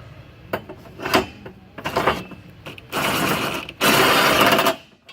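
Corded electric impact wrench driving a suspension bolt into its thread, first in a few short trigger pulls, then in two longer runs of about a second each.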